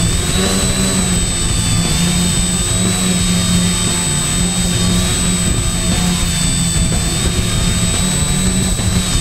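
X900 tricopter's electric motors and propellers running in low flight, heard from on board: a steady propeller hum with a high motor whine that wavers slightly in pitch as the throttle shifts, and a constant thin high tone above it.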